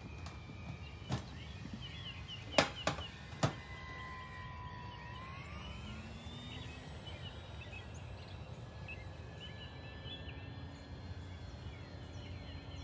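Electric outrunner motor and propeller of an FMS Ranger 1220mm RC plane whining in flight overhead, its pitch rising about five seconds in. A few sharp clicks come in the first few seconds.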